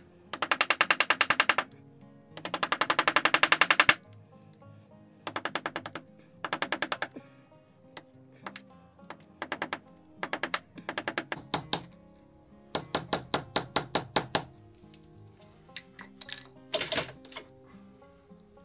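Socket ratchet clicking in quick runs of about a second each, several times over, as fasteners are spun off.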